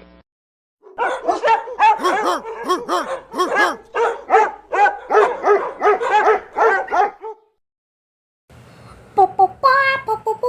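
A dog barking and yipping in a quick run of short, high yelps for about six seconds. After a pause, a voice starts near the end.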